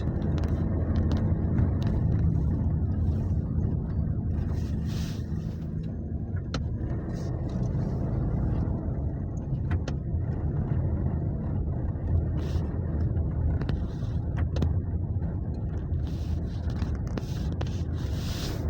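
Toyota Innova being driven at a steady pace: a continuous low engine and road rumble with a few faint clicks.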